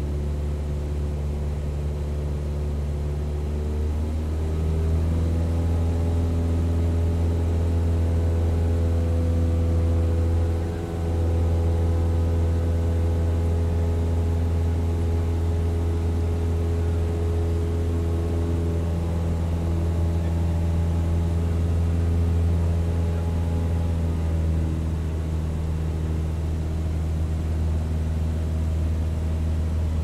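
Propeller plane engine running steadily in flight: a droning stack of steady tones over a strong low hum. The engine note steps up about four seconds in, and there is a brief dip in level around eleven seconds.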